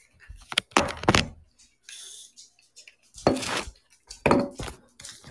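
Irregular clatter and rustling of objects being handled and moved about, with a few louder knocks and scrapes about a second in and again near three and a half and four and a half seconds.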